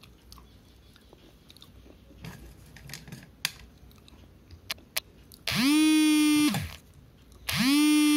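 Quiet crunching and chewing of slate pencil for about the first five seconds. Then a mobile phone vibrates for an incoming call: two loud buzzes of about a second each, each sliding up in pitch as it starts and down as it stops.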